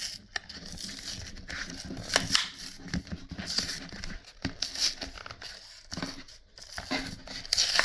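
Trading-card product packaging being torn and crinkled open by hand, in irregular rips, rustles and clicks; the packaging is hard to open.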